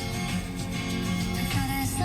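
Music: a song with steady held chords and a singing voice coming in about a second and a half in, starting abruptly as the previous track cuts off.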